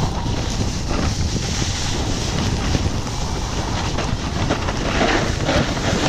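Wind rushing over a camera microphone during a snowboard run: a steady rush with a deep rumble underneath, mixed with the hiss of the board's edge over snow.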